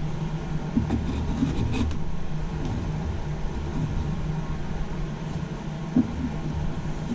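A steady low hum in the background, with a few faint knocks and clicks from wooden clamp parts being handled and fitted together.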